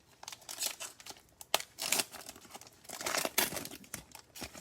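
Foil trading-card pack being torn open and its wrapper crinkled, a run of irregular rustles and rips.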